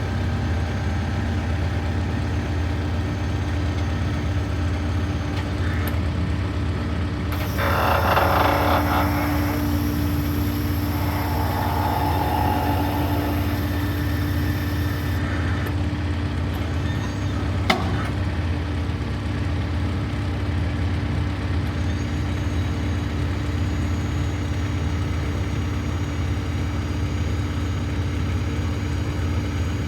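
A vacuum excavator's 49 hp Yanmar diesel engine running steadily. About a quarter of the way in, a loud hiss of rushing air starts and lasts about seven seconds, and a steady hum joins the engine and stays. A single sharp click comes just after the middle.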